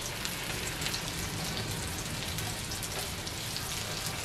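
Egg-battered jeon (perilla-leaf pancakes and skewers) frying in oil on a nonstick electric griddle: a steady sizzle with fine crackles.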